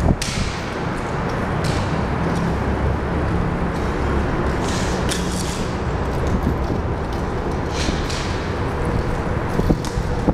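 Bike polo play on pavement: a steady low outdoor rumble with a few sharp clacks of mallets hitting the ball, the loudest right at the start.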